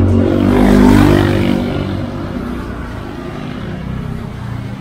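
A motor vehicle passing close by on the road, its engine getting louder up to about a second in and then fading away.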